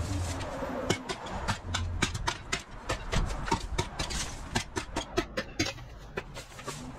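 An irregular run of sharp cracks and snaps, a few a second: dry, dead weeds and sticks breaking and rattling as they are pulled and cleared off concrete.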